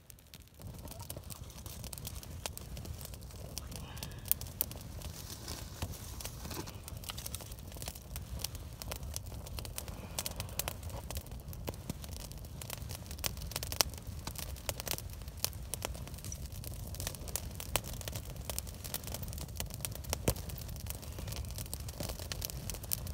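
Freshly lit campfire of dry twigs and brushwood burning hard, crackling and popping irregularly over a low steady rumble.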